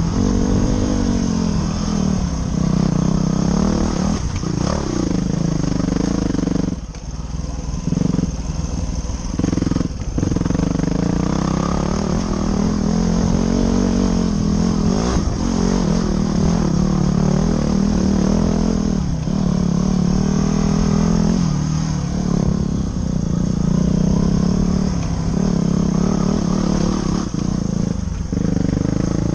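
Dirt bike engine running under load, heard from a helmet-mounted camera, its pitch rising and falling as the throttle opens and closes. The engine note drops off briefly about seven seconds in and again around ten seconds.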